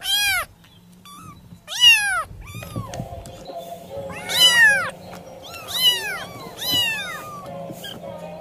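Cat meowing repeatedly, about six meows, each rising then falling in pitch; the longest and loudest comes about halfway through.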